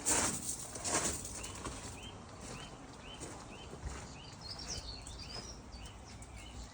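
Two loud bursts of rushing noise in the first second or so, then a small bird calling with a short repeated chirp about three times a second, joined briefly by a higher twittering bird in the middle.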